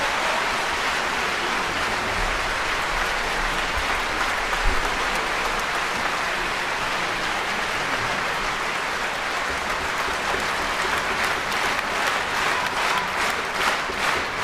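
A concert hall audience applauding after an orchestral performance. Near the end the clapping falls into unison, about two claps a second.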